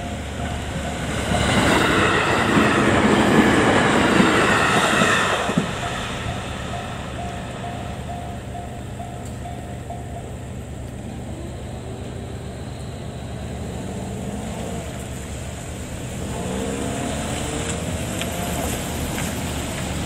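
E653 series electric limited express train passing a level crossing, loud for a few seconds as it goes by, while the crossing's warning bell rings over and over. The bell stops about ten seconds in, and a low rumble of the train carries on.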